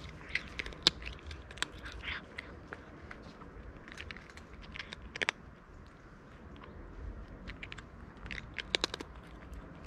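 Tuxedo cat crunching dry kibble: irregular sharp crunches as it chews, bunched in short runs near the start, about five seconds in and again near the end.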